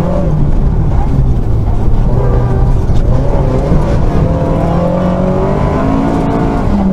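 Rally car engine heard from inside the cabin, running hard at speed, its pitch rising and falling as the driver works through the gears.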